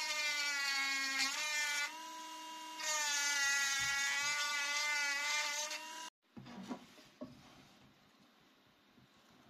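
A small engraver pen (mini rotary tool) runs with a steady high motor whine as its bit cuts the pattern lines into the wooden knife handle. The whine drops quieter for about a second, two seconds in, and cuts off suddenly about six seconds in. A few faint ticks and scratches follow from a small hand carving knife on the handle.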